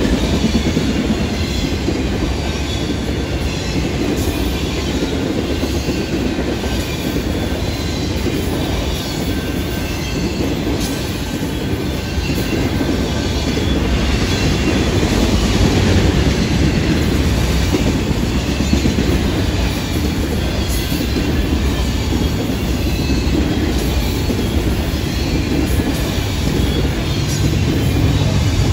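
Freight cars rolling past at speed: a steady rumble of steel wheels on rail, with rail-joint clatter and faint high wheel squeal. A deeper low drone builds near the end.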